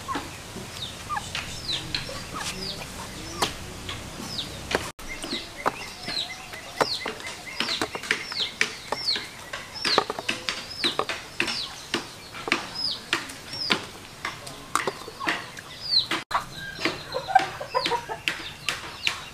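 Chickens peeping: short high calls that fall steeply in pitch, about one or two a second, with scattered sharp clicks among them.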